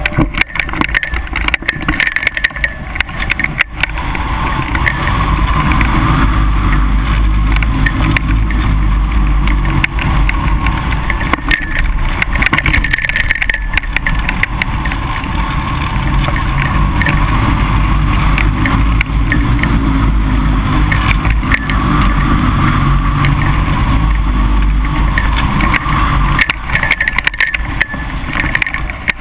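Wind and airflow rushing over the microphone of a camera mounted on a hang glider in flight: a loud, steady rush with a heavy low rumble, in strong, gusty wind.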